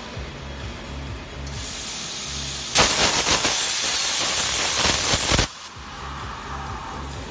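Plasma torch on a CNC rotary pipe cutter: a hiss of air starts at the torch, then the arc strikes with a sudden loud hiss as it cuts the steel tube for about three seconds, and cuts off abruptly.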